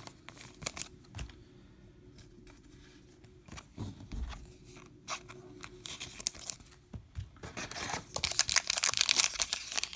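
Light clicks and rustles of baseball cards being handled, then from about seven and a half seconds in the crinkling and tearing of a card pack's wrapper being opened, growing louder toward the end.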